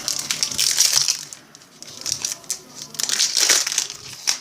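Foil wrapper of a baseball card pack crinkling as it is handled and opened, in two bursts of rustling about a second long each.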